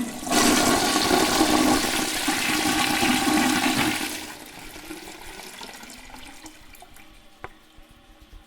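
Toilet cistern flushing: a loud rush of water into the bowl for about four seconds, then tailing off into a quieter gurgle and trickle as the flush drains away, with a single click near the end.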